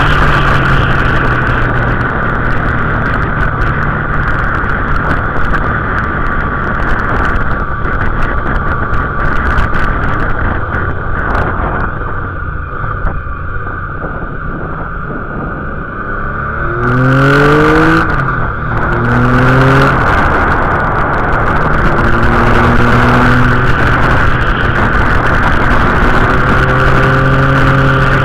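Motorcycle engine heard from an onboard camera, with wind rush. It runs steadily, eases off through a bend in the middle, then accelerates with its pitch rising in steps through a couple of upshifts, and settles into steady running.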